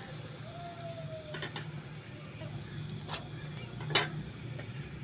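Egg dosa cooking on a hot iron tawa over a gas burner: a steady low hum with a faint hiss of sizzling, broken by a few sharp taps, the loudest about four seconds in.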